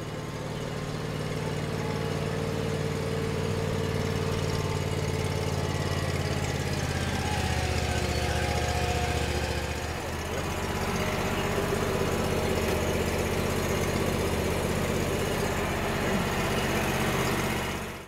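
Engine of a Toro compact utility loader running steadily, its tone shifting around seven and ten seconds in, then cutting off suddenly at the end.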